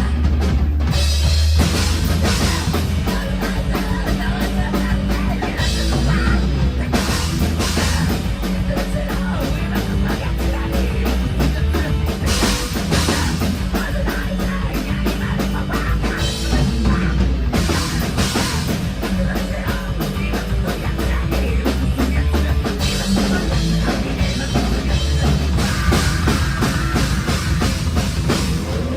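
Heavy metal band playing loud and fast, with a drum kit driving rapid beats and cymbals over a heavy bass line; no singing in this passage.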